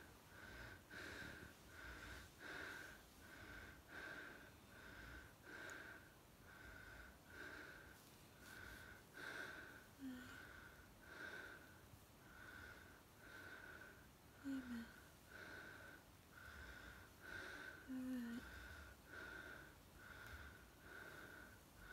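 A woman breathing fast and evenly, with a thin whistling wheeze on each breath a little faster than once a second, as she lies unresponsive after a seizure. A few soft, low, falling moans come in among the breaths.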